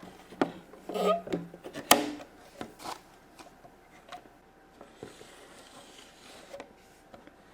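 Hard plastic toy pieces being handled: several sharp clicks and knocks in the first three seconds, the loudest near two seconds in, then a few faint taps and rubbing.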